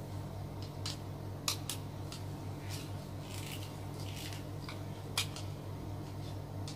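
Scattered light clicks and scrapes, about nine in all, of wires and a plastic switch plate being handled as the wires are fitted into a wall switchboard's terminals. A steady low hum runs underneath.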